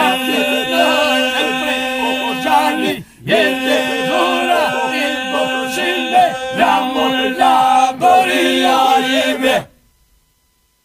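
Group of men singing an Albanian folk song unaccompanied, a steady held drone under the moving melody voices, in the style of Albanian iso-polyphony. The singing breaks off briefly about three seconds in and stops abruptly near the end.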